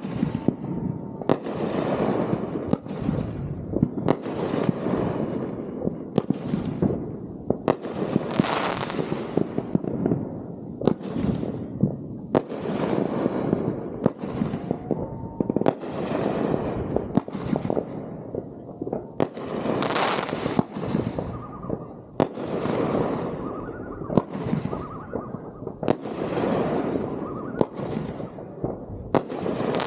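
A fireworks display: aerial fireworks bursting one after another, a sharp bang every second or two, each followed by a fading rush of crackle.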